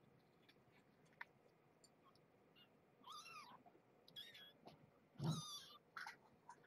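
Young kittens mewing faintly: three short high-pitched mews that bend in pitch, about halfway through and just after, with a few soft taps between them.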